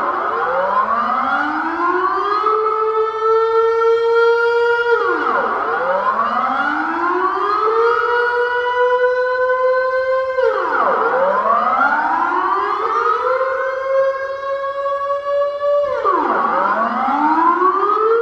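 Two-tone air-raid (civil defense) siren sounding a wail. Its chord drops quickly, then winds back up over a couple of seconds and holds, repeating about every five and a half seconds, with four falls in all.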